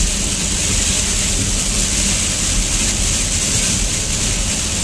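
Steady road noise inside a moving car: tyres hissing on wet pavement over a low engine and drivetrain rumble.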